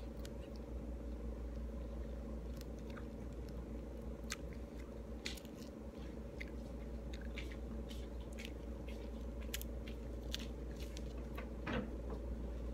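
Pomelo segments being chewed and eaten close to the microphone: scattered wet mouth clicks and smacks, a little louder near the end, over a steady low hum.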